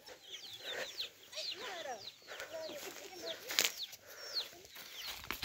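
Chickens calling: many short, falling cheeps from chicks over lower clucking, with a single sharp click about three and a half seconds in.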